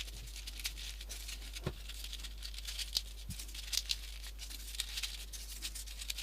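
Folded paper 3D origami modules being slotted into a paper model: soft, scattered paper ticks and rustles, a few each second.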